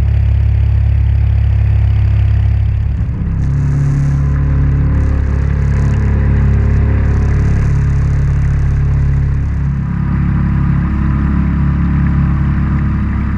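Mokai jet kayak's engine running steadily under way, a loud low drone whose pitch shifts about three seconds in and again about ten seconds in, with spells of hiss over it in the middle.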